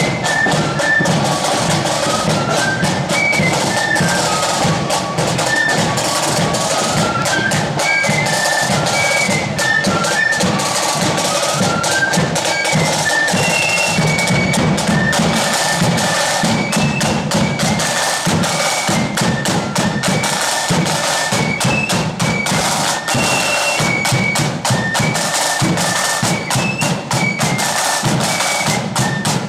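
Blood-and-thunder marching flute band playing a march: flutes carry a melody that steps up and down, over busy side drumming and a bass drum beat.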